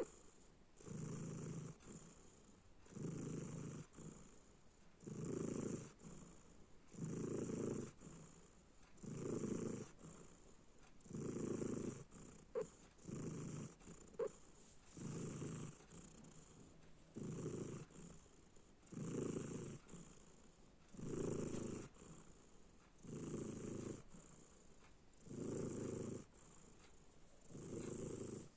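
Domestic cat snoring while asleep: a regular rasping breath about every two seconds, fourteen or so in a row. Twice near the middle a brief high squeak rides on a breath.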